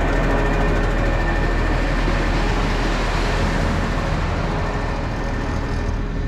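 Diesel engine of a ready-mix concrete mixer truck running steadily, with a rushing noise that swells and fades around the middle.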